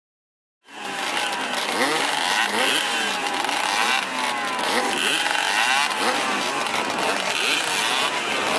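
Several vintage motocross motorcycles revving their engines together at a race starting gate, many overlapping rising and falling engine notes. The sound starts suddenly just under a second in.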